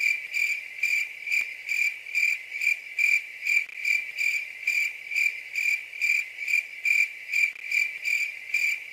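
Cricket chirping in a steady, even rhythm of about two and a half high, thin chirps a second.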